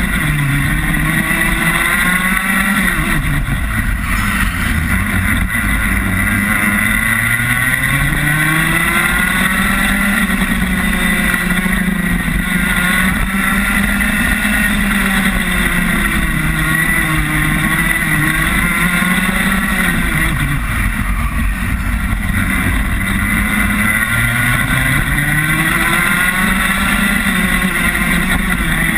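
Rotax Max 125cc single-cylinder two-stroke kart engine heard onboard at racing speed, its pitch climbing steadily on the straights and dropping sharply for the corners, several times over.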